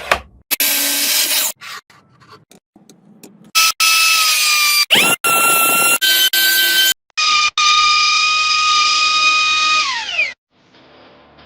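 Electric wood router running in several short, abruptly cut segments: a high, steady motor whine mixed with noisy cutting. In the last and longest segment the whine drops in pitch as the motor spins down near the end.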